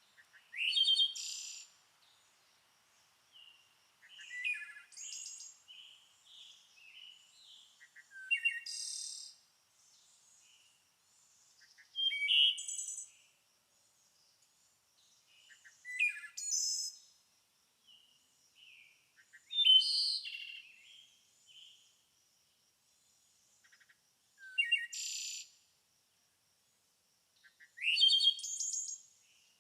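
A songbird singing short, quick phrases of high chirps and sweeping notes, one phrase about every three to four seconds with quiet gaps between.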